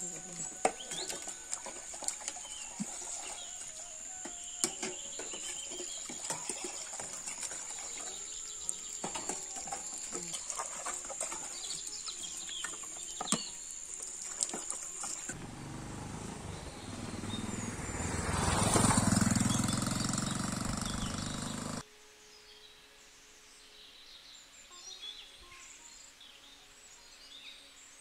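Plates and metal bowls clinking as they are washed and stacked, over a steady high insect drone and bird chirps. About two-thirds of the way through, a rush of noise swells and fades, then cuts off suddenly, leaving quieter birdsong.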